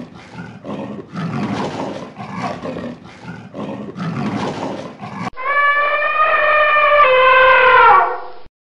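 Rough, noisy animal calls in several bouts, then, after a cut, an elephant trumpeting: one long, loud, brassy call that drops in pitch at the end.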